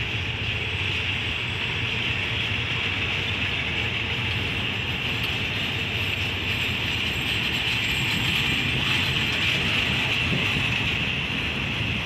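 Railway coaches rolling slowly past on the rails: a steady low rumble of wheels on track with a steady high hiss over it.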